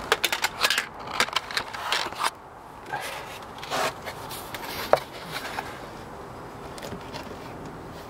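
Handling noise as a beehive's metal-topped outer cover is put on over a felt insulation pad: a quick run of rustling and scraping, then a few separate knocks, the sharpest about five seconds in, and only a low background near the end.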